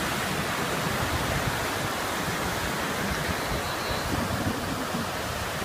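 Sea surf washing onto a beach: a steady, even rush of breaking waves.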